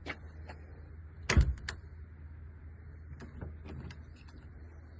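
A single loud thump about a second and a half in, with a few sharp clicks around it, over a steady low hum.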